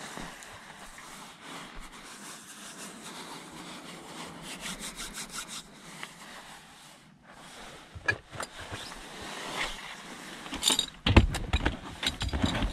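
Hands rubbing together with a steady scratchy rustle, speeding into quick even strokes midway. Near the end come a few sharp knocks and louder rustling as gear is handled.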